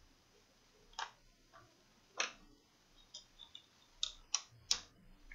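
Light, sharp clicks and taps of laptop parts being handled on a workbench: a copper heatsink-and-fan assembly being worked over the motherboard, and a screwdriver set down on the desk. About seven separate clicks, a few single ones early and a quick cluster near the end.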